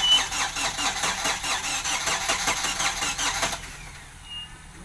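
Off-road 4x4's engine running close by with a fast, rhythmic pulsing, over a steady low hum. The pulsing drops away about three and a half seconds in, leaving a quieter steady running sound.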